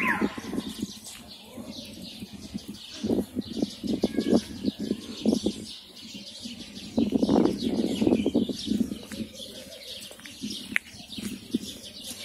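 Pigeons cooing in repeated bursts, with small birds chirping higher up. At the very start the last rising-and-falling wail of a car alarm cuts off.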